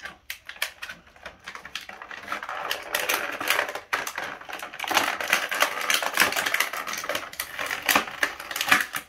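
Stiff plastic action-figure packaging crackling and clicking as the figure is worked out of its tray: a fast run of sharp clicks and crinkles that grows denser and louder about two or three seconds in.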